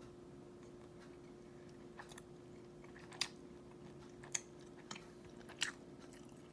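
A person chewing a soft glazed cinnamon roll close to the microphone, with sharp wet mouth clicks and smacks about once a second from about two seconds in, over a faint steady hum.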